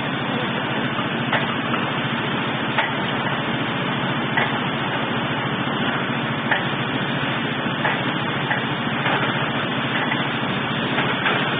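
Engine of a portable borehole drilling rig running steadily, with occasional sharp knocks.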